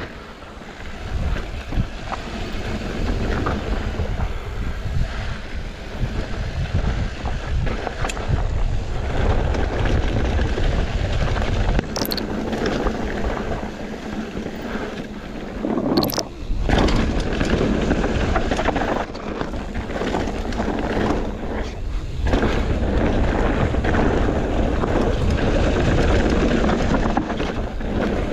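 Wind buffeting the microphone and the rumble and rattle of an Ibis Ripmo AF mountain bike rolling over dirt singletrack, steady throughout, with two sharp knocks a few seconds apart around the middle.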